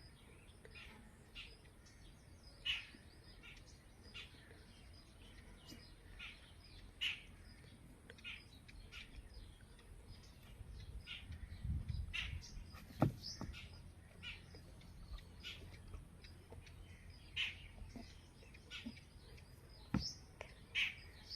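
Birds chirping, short calls scattered every second or two. About halfway through, a low rumble rises and a single sharp knock sounds, the loudest thing in the stretch.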